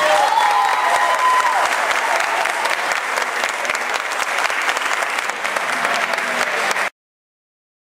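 Audience applauding, with voices calling out over the clapping near the start; the applause cuts off abruptly about seven seconds in.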